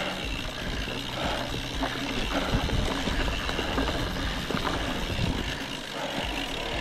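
Mountain bike rolling along a dirt trail: wind buffeting the microphone, tyre rumble on the ground, and the bike knocking and rattling over bumps.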